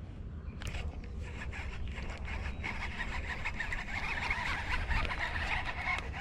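Baitcasting reel being cranked while fighting a hooked bass: a dense, fast whirring rattle that starts about a second in and builds slightly, over a low rumble.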